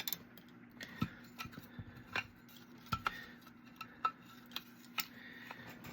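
Light, irregular clicks and taps, roughly one a second, from tiny screws, a screwdriver and the Raspberry Pi case parts being handled, over a faint steady hum.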